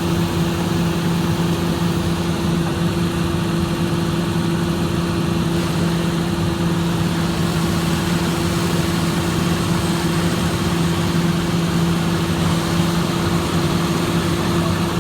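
Excavator's diesel engine running at a steady idle, an even low drone that holds one pitch throughout.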